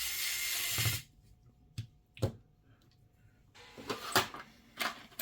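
Electric precision screwdriver running for about a second as it drives a small bezel screw, followed by a few light clicks and taps of small parts being handled.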